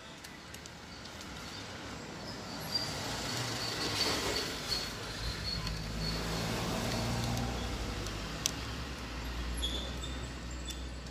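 A motor vehicle passing by: a low rumble that swells over the first few seconds, holds, then slowly fades, with a few faint clicks over it.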